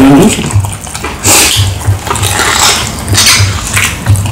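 Close-up wet chewing and lip-smacking of fried peppered cow feet eaten by hand, in irregular moist smacks over soft jaw thumps.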